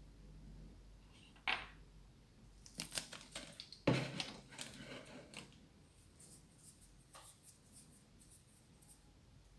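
Clicks and light scrapes of small hard objects being handled. One sharp click comes first, then a busy run of clicks and scrapes with one louder knock, then a few faint ticks.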